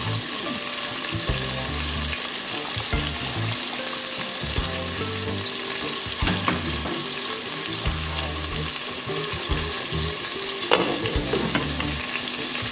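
Pot of soaked red kidney beans boiling hard: a steady bubbling hiss, with water poured in early on and a few clinks of a glass pot lid being set back on near the end.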